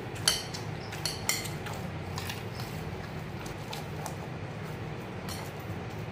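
Dough being kneaded by hand in a glass bowl: a few sharp clinks of glass and bangles knocking together, mostly in the first couple of seconds, then fainter knocks, over a low steady hum.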